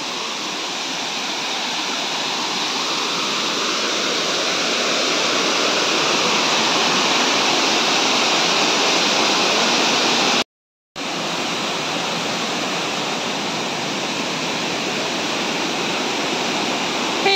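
Loud, steady rush of a waterfall: water cascading over rocks at the first fall of Elephant Falls. It cuts out for about half a second just past the middle, then carries on.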